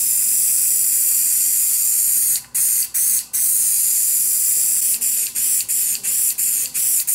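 Aerosol spray adhesive hissing from a can as it is sprayed onto a panel: long steady blasts with a few brief breaks, then a quick run of short spurts, about three a second, near the end.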